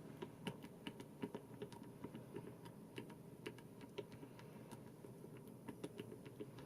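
Buttons of an Elgato Stream Deck being pressed over and over: a run of light, irregular clicks, several a second.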